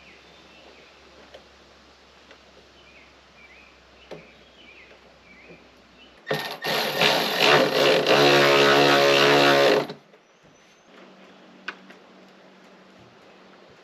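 Power drill running for about three and a half seconds, first in short uneven spurts of the trigger and then steadily at one pitch. It is likely driving or backing out screws on the fridge's door hardware.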